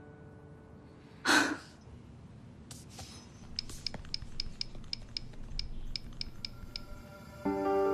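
A short breath about a second in, then a run of about fifteen to twenty light, quick taps from a smartphone's on-screen keyboard over some four seconds as someone types on the phone. Soft background music comes in near the end.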